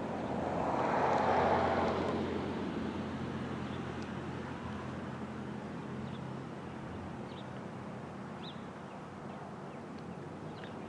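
A vehicle passing by: a broad rush that swells to its loudest about a second in and then slowly fades, over a steady low hum, with a few faint bird chirps in the second half.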